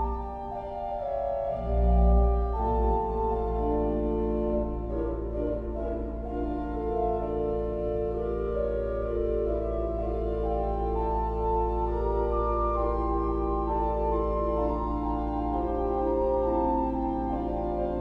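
Steinmeyer pipe organ playing a slow improvisation on its flute stops: sustained chords with a melody moving above them. A deep bass note swells about two seconds in, then a low pedal note holds underneath.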